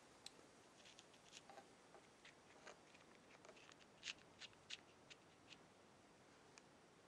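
Faint scattered ticks and scratches of a pointed probe tool prodding brittle, hydrolysed polyurethane pouches in a player piano stack, with a cluster of sharper ticks about four to five seconds in.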